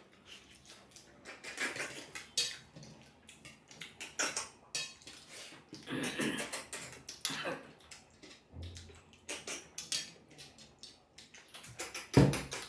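Close-up eating sounds: chewing and lip-smacking while eating rice and curry by hand, with fingers scraping and clinking on steel plates. There is a heavier thump near the end.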